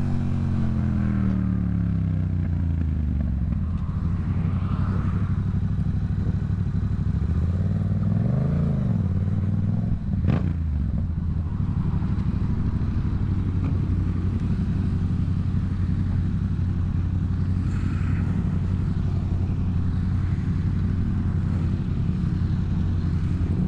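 Yamaha MT-07 parallel-twin with a Black Widow aftermarket exhaust, ridden on the road and heard from on board. The revs fall at the start, rise and fall once about eight seconds in, and a sharp click comes at about ten seconds. It then settles into a steady cruising drone.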